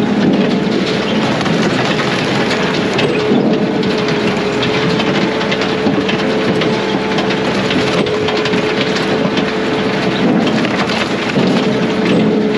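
Brute Force USA 18-24HD diesel firewood processor running loud and steady, with a constant whine and a busy crackle of short clicks over the machine noise.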